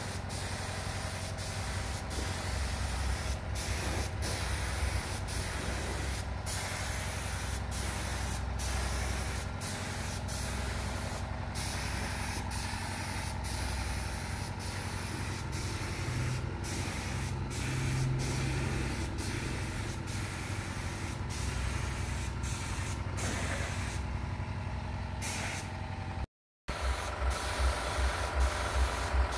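Compressed-air spray gun with a gravity-feed cup spraying polish onto carved wood: a steady hiss of air and mist, broken by many brief pauses. A steady low hum sits underneath.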